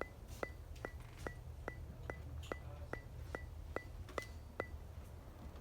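Regular mechanical ticking, about two and a half ticks a second, each tick with a short high ping, over a steady low rumble.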